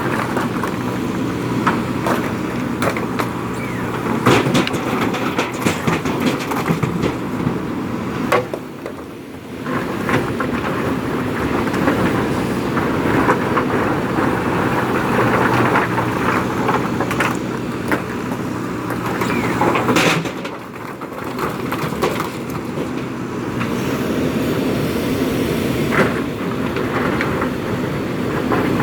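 JCB 3DX Super backhoe loader's four-cylinder diesel engine running under load while it loads stones, with scattered sharp knocks and clatter of stones against the steel bucket and truck bed. The engine eases off briefly twice.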